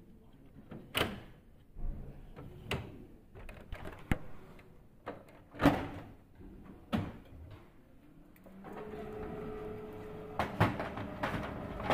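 Hard plastic clicks and knocks as parts and panels of a Canon iR 2202 copier are fitted back and closed, the loudest a sharp knock about halfway through. About nine seconds in, a steady machine hum with a held tone starts: the copier powering up after reassembly, with more clicks over it.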